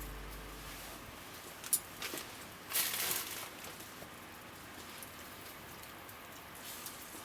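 Background guitar music fading out, then a faint patter of noise with a few sharp clicks and a brief rustle about three seconds in.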